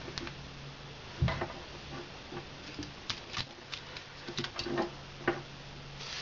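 Irregular small clicks and taps of wires, plug and tools being handled on a workbench while getting ready to solder, with one louder thump about a second in. A steady low electrical hum sits underneath.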